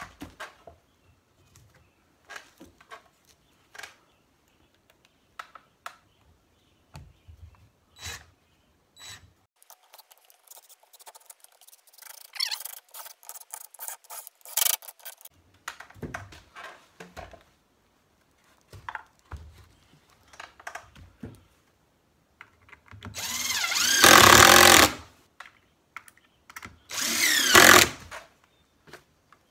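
DeWalt cordless impact driver running screws into the wooden boards of a mold box, in three runs: a shorter one in the middle and two longer, louder ones near the end. Before that, scattered knocks and clatter of wood being handled and set in place.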